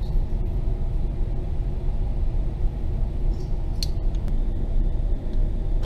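Steady low rumble, with a faint sharp click about four seconds in.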